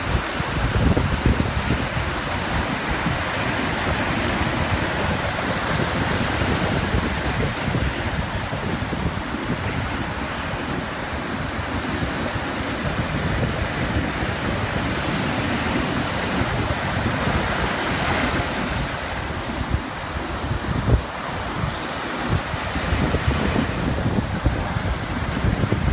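Ocean waves washing onto a beach in a steady wash of surf, with wind buffeting the microphone in low rumbles.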